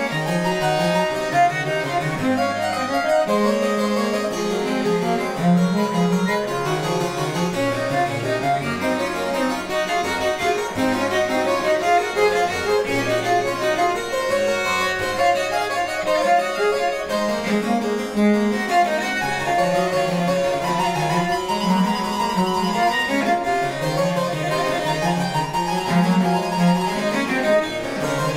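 Harpsichord and viola da gamba playing together, a continuous instrumental piece with the harpsichord's plucked notes over the viol's bowed low line.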